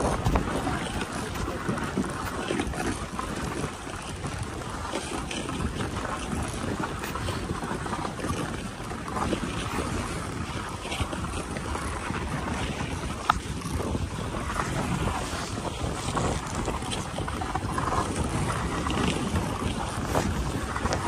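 Dog sled moving along a snowy trail: a steady rushing hiss of the runners sliding over the snow, mixed with wind buffeting the microphone. A single sharp knock about thirteen seconds in.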